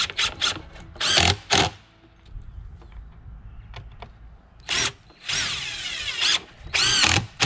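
Cordless drill driving screws into a wooden frame: several short runs of the motor whining, the longest about a second long with a rising pitch about halfway through.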